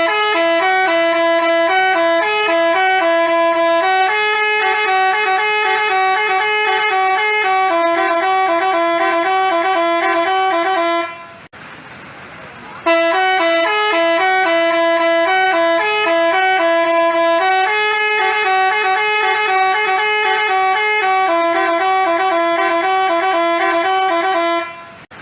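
Telolet musical bus horn playing a tune of steady held notes. The tune breaks off about eleven seconds in, starts over the same way a second or so later, and stops near the end.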